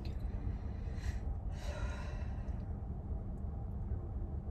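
A woman's tired sighs, two airy breaths blown out through pursed lips about a second and two seconds in, after yawning. A steady low hum of the car cabin runs underneath.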